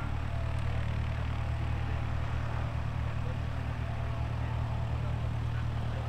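Single-engine propeller light aircraft on its landing approach: a steady, low engine and propeller sound.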